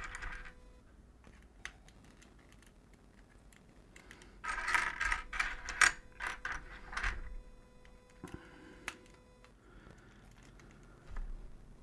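Small plastic LEGO pieces clicking and clattering as a hand sifts through a loose pile of them on a tabletop. A few scattered clicks come first, then a busier run of clattering from about four to seven seconds in, with a few more clicks after.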